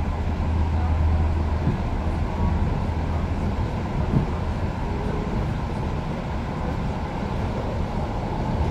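Steady rumble and wheel noise of a moving passenger train, heard from inside the carriage, with a low hum in the first couple of seconds and a single short knock about four seconds in.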